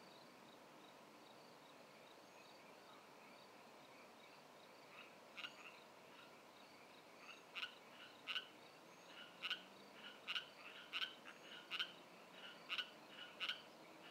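A frog croaking in short, repeated calls. They start about five seconds in and come about once a second toward the end, over faint steady chirping of crickets.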